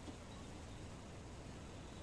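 Faint steady hiss of room tone, with no distinct sound event.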